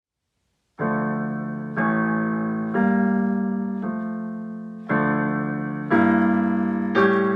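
Piano playing slow, sustained chords, one struck about every second, each fading before the next; it begins just under a second in, after a brief silence.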